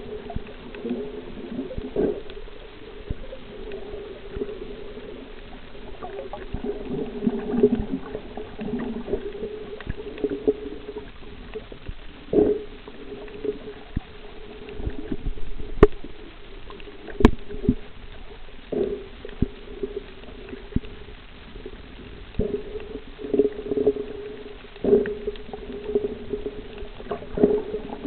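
Muffled underwater sound picked up through a camera housing: a steady low hum that swells and fades, with scattered clicks and knocks and two sharp clicks a little past halfway.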